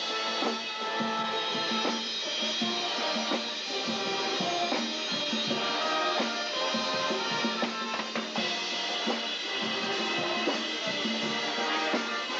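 A marching band (fanfarra) playing: brass holding pitched chords over snare and bass drums.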